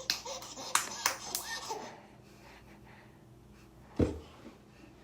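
A run of sharp taps in the first two seconds, then a single heavy, dull thump about four seconds in.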